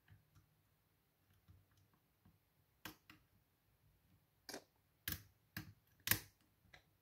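Lock pick and tension wrench working the pins of a pin-tumbler lock: a scattering of small metallic clicks, faint at first, with a handful of sharper clicks in the second half.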